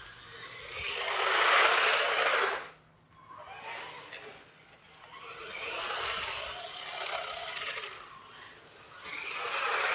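Hosim 9125 1:10 4x4 RC truck with dual brushed motors, driven in three bursts of throttle. The loudest runs from about one second in and cuts off sharply near three seconds, then two weaker runs follow.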